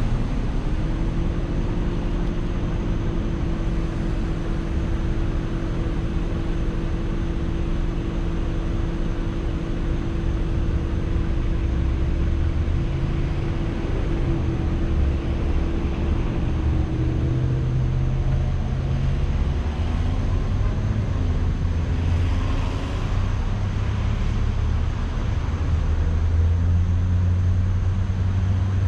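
Car driving, with engine and road noise running steadily. A steady hum drops to a lower pitch about two-thirds of the way through.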